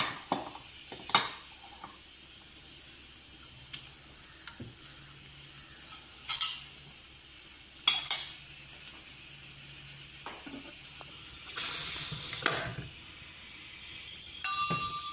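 Ceramic bowls and dishes knocking and clinking as they are handled and set down on a countertop, a series of sharp knocks over a steady hiss. About three seconds from the end comes a louder rush of noise lasting about a second.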